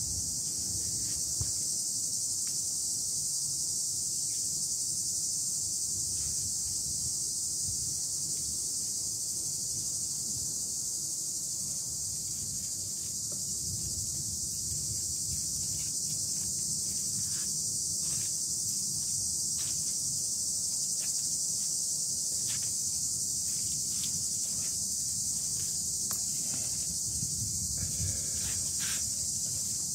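Steady high-pitched drone of insects in garden vegetation, with scattered faint clicks in the second half.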